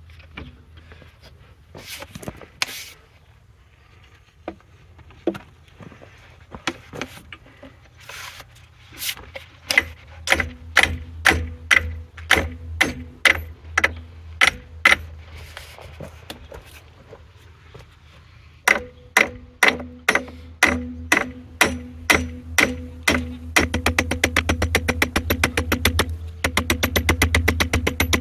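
Hammer blows ringing on the steel of a seized driveline, in runs of about two strikes a second, then a much faster run of strikes near the end, over a steady low hum.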